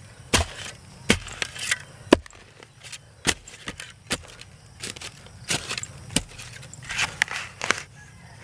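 A metal spade blade chopping repeatedly into soil threaded with roots, about a dozen sharp strikes at an uneven pace, each with a short scrape of dirt.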